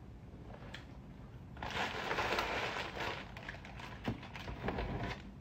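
Clear plastic food bag crinkling as it is handled, loudest for about a second and a half around two seconds in, then a few sharp rustles and clicks.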